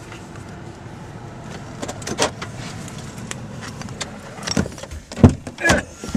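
Car interior with the engine running low and steady, then clicks, key jingles and knocks as the car is parked. A heavy low thump comes a little after five seconds, typical of a car door being opened and handled.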